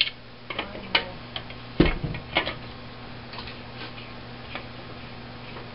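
Clicks and one heavy knock from a tilt-head stand mixer, switched off, as its head is unlocked and tilted up off the bowl. The knock comes about two seconds in; after it there are only a few faint taps.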